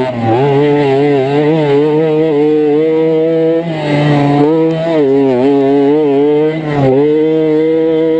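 Kreidler Flory 50 cc two-stroke moped engine running hard at high revs. The pitch wavers, dropping briefly and picking up again twice as the throttle eases and opens.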